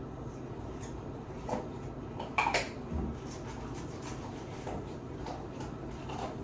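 Scattered light clinks and knocks of kitchen handling out of view, the loudest cluster about two and a half seconds in, over a steady low hum.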